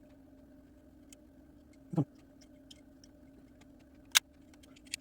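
Small sharp clicks and ticks of hand tools prying at a plastic model locomotive body shell, scattered and irregular, the loudest about four seconds in, over a faint steady hum.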